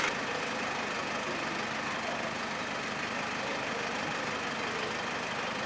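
City street traffic: a motor vehicle's engine running amid a steady hum of traffic noise.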